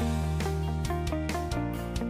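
Background music: a plucked guitar melody of short notes over a sustained bass.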